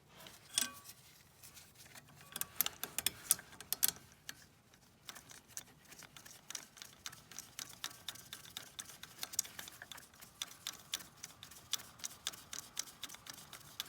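Ratchet wrench clicking in quick, irregular runs of sharp ticks as the handle is swung back and forth.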